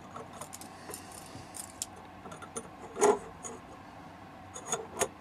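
Light metallic clicks and clinks of thin steel rods being fitted into the slotted steel bar of a folding grill rack, with one louder knock about three seconds in and a run of clicks near the end.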